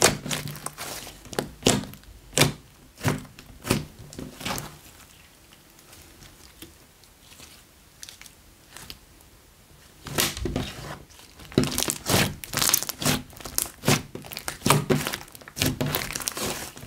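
Thick white slime being kneaded and squeezed by hand, giving a run of sharp sticky pops and clicks. The pops thin out to a few faint ones for several seconds in the middle, then come fast again.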